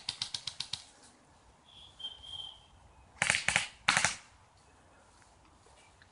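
Airsoft rifle firing on full auto: a fading string of rapid shots, then two short, loud bursts about three seconds in.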